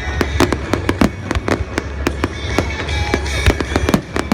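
Aerial fireworks bursting in quick succession, a dense run of sharp bangs and crackles, with music playing underneath.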